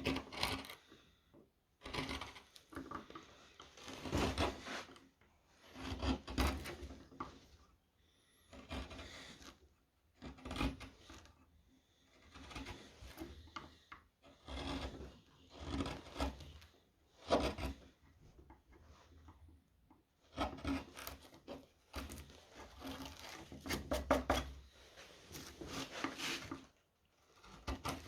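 Round chisel (gouge) cutting into a wooden spoon, a series of short scraping strokes about one every one to two seconds as shavings are pared away.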